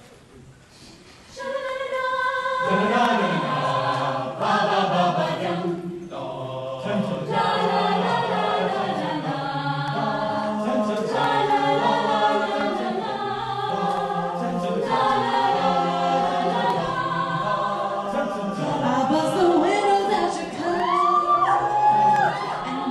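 A cappella group singing a Hindi fusion arrangement, voices only in layered harmony; the singing starts about one and a half seconds in.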